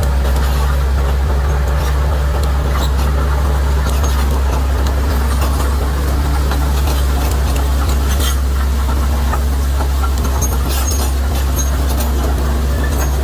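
Bulldozer's diesel engine running steadily with a deep, constant drone, overlaid by scattered sharp cracks and clanks that come thicker about eight seconds in and again around ten to eleven seconds.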